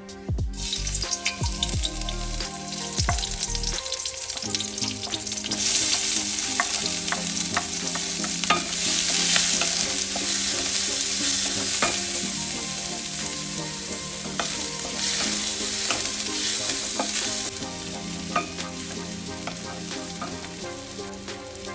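Chopped shallots, garlic, chillies and spices sizzling in hot oil in a stainless-steel wok as they are stir-fried with a wooden spatula, with scattered clicks and scrapes of the spatula against the pan. The sizzle grows louder about five seconds in and eases off about three-quarters of the way through.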